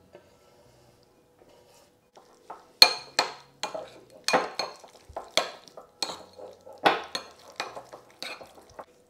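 A spoon clinking and scraping against a bowl as a yogurt mixture is stirred, in quick strokes about two or three a second, starting about three seconds in.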